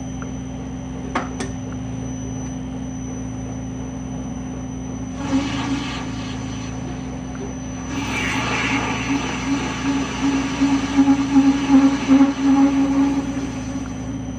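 South Bend metal lathe running steadily while a form tool plunges into a spinning A2 tool-steel blank to shape a button gear cutter. From about eight seconds in, the cut grows louder and rougher, with uneven pulses as the tool starts to vibrate and chatter.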